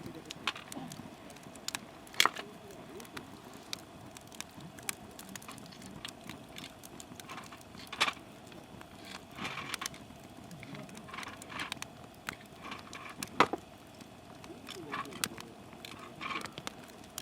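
Softwood (conifer) firewood burning in a campfire pit, crackling with irregular sharp pops; three pops stand out as much louder, spread through the stretch.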